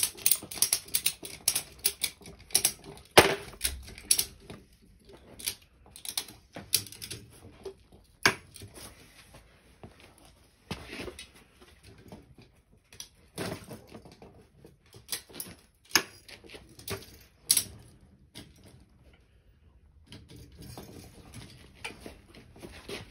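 Irregular sharp mechanical clicks from a steel cable pull-test rig as the load on a 5 mm stainless steel railing cable is raised. They come in quick runs for the first few seconds, then more sparsely, with a quiet gap shortly before the end.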